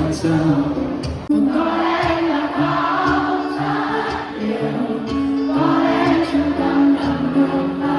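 Background music: a song with sung vocals over a steady accompaniment.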